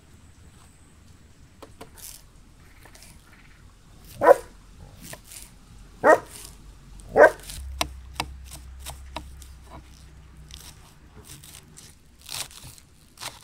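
A dog barks loudly three times, about four to seven seconds in. Around the barks, a kitchen knife chops fresh dill and green onions on a wooden cutting board in a run of quick taps, thickest in the second half.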